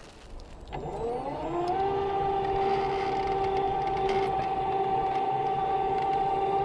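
Electric drive motor of a solar kayak, fed directly from the solar panels through a cordless-drill trigger used as a PWM speed control, starting up about a second in: its whine rises in pitch for about a second, then holds a steady pitch.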